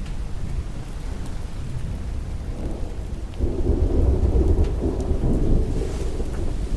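Steady heavy rain with a roll of thunder rumbling in about halfway through, deep and loudest for a couple of seconds before easing back under the rain.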